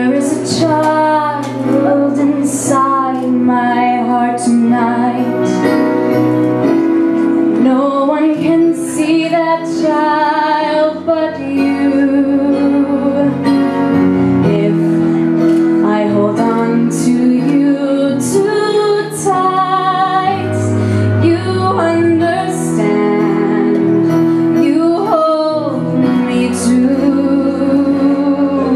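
A woman singing a slow ballad into a handheld microphone, her amplified voice wavering on held notes, with a band accompanying on sustained chords.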